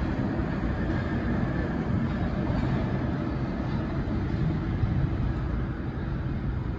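New York City subway train running through the tunnel: a steady low rumble with no distinct clanks or squeals.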